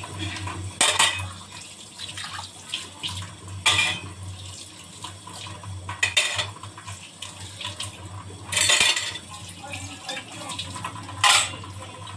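Washing dishes at a kitchen sink: the tap runs steadily while stainless steel plates, bowls and ceramic mugs clatter. There are five loud clanks about every two and a half seconds.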